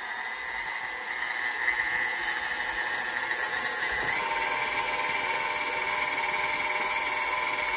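KitchenAid Artisan stand mixer running, its motor whining steadily as the beater mixes a bowl of buttercream icing. The whine steps up in pitch about four seconds in.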